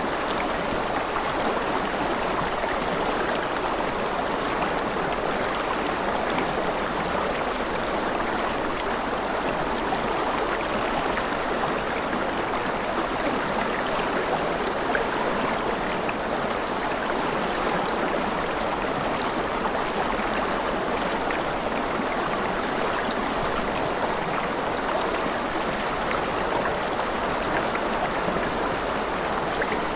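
Rushing river water flowing steadily, a continuous even splashing rush with no breaks.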